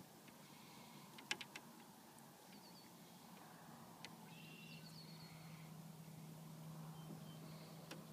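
Near silence with faint bird chirps in short runs of quick notes, a few sharp clicks about a second in, and a low steady hum that grows stronger from about halfway.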